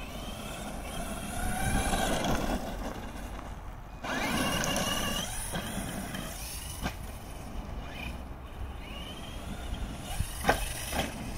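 Electric motor and drivetrain of an FTX Carnage RC monster truck whining as it is throttled over dirt jumps, the pitch rising and falling again and again. A couple of sharp knocks come near the end.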